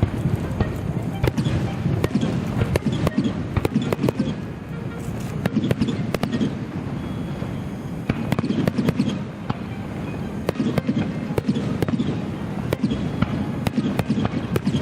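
Fireworks display: a rapid, irregular string of bangs and crackles over a continuous low rumble of echoing explosions.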